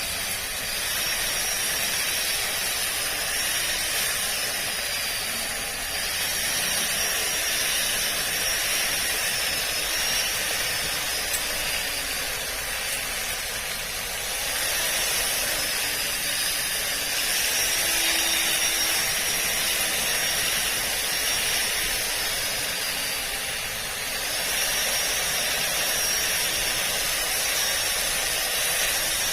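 Makita 18V cordless split ground trimmer running while cutting lawn grass. It makes a steady rushing noise with a high motor whine that sags in pitch and picks up again every several seconds as the cutting load changes.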